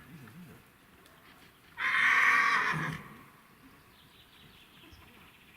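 Horse whinnying once: a loud, high, wavering call that starts about two seconds in and lasts a little over a second.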